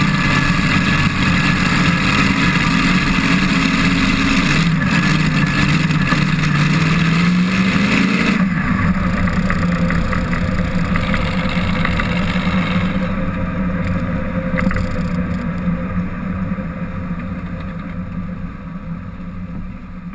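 Supercharged V8 drag-racing altered rolling down the shutdown area after a run with its parachutes out, the engine running low and steady under rushing wind. The wind noise drops about eight seconds in, and the whole sound fades toward the end as the car slows.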